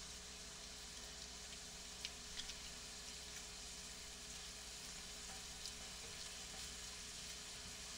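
Raw grass-fed beef burger patty frying in its own fat in a non-stick pan: a faint, steady sizzle, with a few small crackles about two seconds in.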